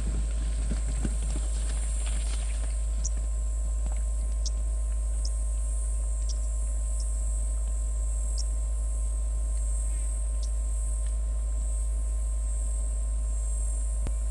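Plains zebra hooves thudding on dry ground as the herd scatters in the first couple of seconds, then a steady high insect buzz with a few short high chirps, all over a constant low rumble.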